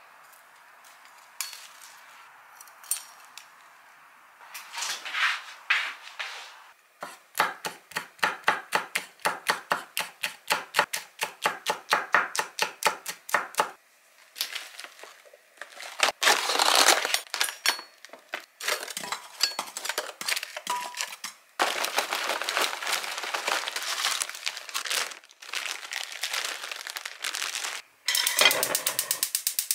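Kitchen knife chopping on a wooden cutting board in a steady rhythm of about four strokes a second, then more irregular cutting and utensil clatter. Near the end a denser, rapid crackling noise takes over.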